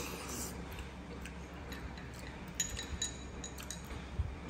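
Soft clicks and a brief ringing clink of chopsticks against a porcelain soup bowl about two and a half seconds in, over a low steady hum.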